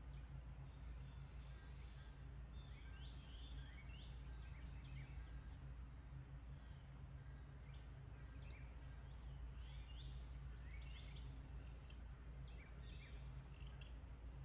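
Faint outdoor birdsong: short chirps and quick down-sweeping calls repeated throughout, over a low steady hum.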